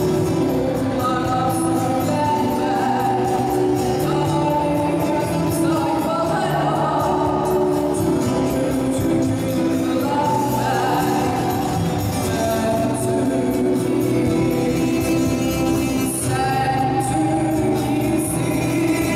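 A woman singing a song into a handheld microphone over backing music, both played through PA loudspeakers.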